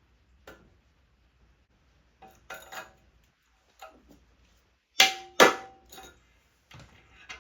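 Light metal clinks, then two loud ringing metallic strikes about half a second apart, as the steel steering-head bearing parts are handled and knocked into place.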